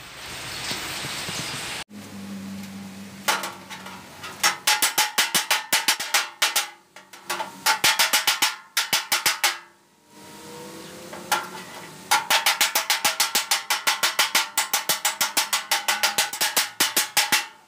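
Rapid metal tapping, about five strikes a second in runs of a few seconds, each with a short ring: a hand tool struck against the edge of a car's steel fender at the wheel arch to align the panel. A steady hiss fills the first two seconds and cuts off abruptly.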